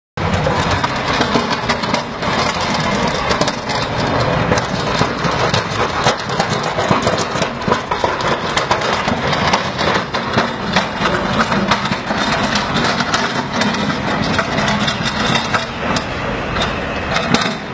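Snowplough truck's engine running as it pushes snow along the street with its front blade, with a steady run of sharp clicks and knocks over it.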